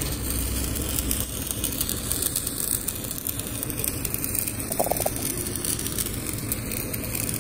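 Stick (arc) welding: the electrode arc crackling and hissing steadily as weld is laid onto a steel pin.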